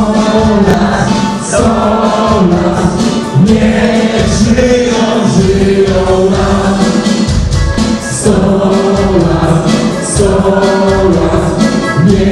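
A group of people singing together in chorus, with a band playing along under the long held notes.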